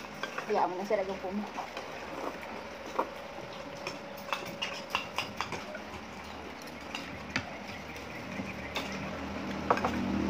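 Chopsticks and spoons clicking and scraping against small bowls while eating, in scattered light taps. A few voices early on, and a low hum builds near the end.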